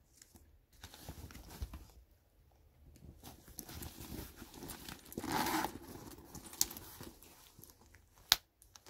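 Tory Burch Kira Chevron quilted leather tote being handled: soft rustling and rubbing of the leather and lining, with a denser rustle about five seconds in. Near the end comes a single sharp click, the bag's snap closure.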